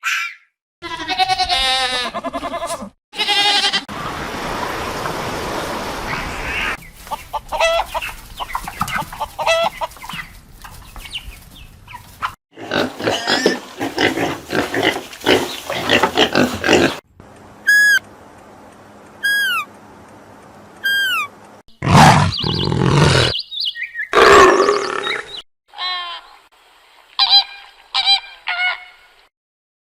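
A run of short recordings of different animal calls played one after another, each cut off abruptly, including a stretch of repeated falling whistle-like calls about two thirds of the way through.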